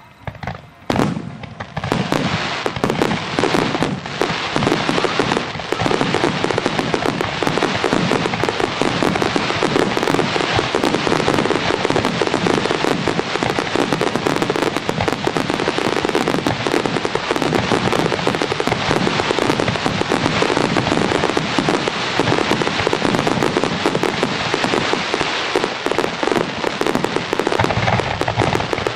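Aerial fireworks display: a few separate bangs in the first second or two, then a dense, unbroken barrage of overlapping shell bursts and crackle as many shells go off at once.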